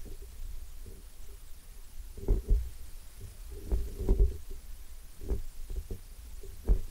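Irregular low thumps and rumble of handling noise from a hand-carried 360fly camera, about eight knocks at uneven spacing, over a faint steady tone.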